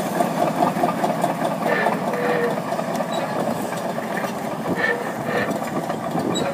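Heavy tractor engine running steadily under load as it tows a large disc plough through scrub, with a dense rattling clatter from the machinery and two brief high squeaks.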